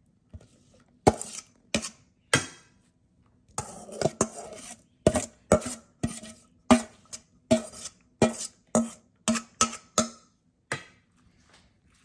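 Kitchen utensils knocking and clinking on cookware: a run of sharp knocks with a slight ring, scattered at first, then about two to three a second through the middle.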